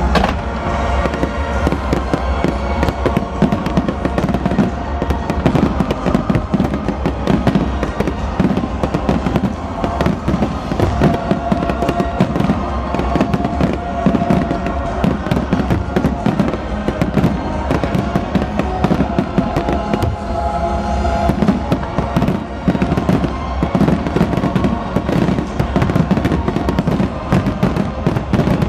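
A fireworks display in full volley: many aerial shells bang in quick succession, without let-up, with music playing along.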